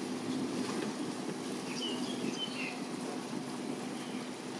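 Distant Boeing 787-9 airliner on approach, its jet engines heard as a steady low rumble with a faint hum. A few short high chirps come in about two seconds in.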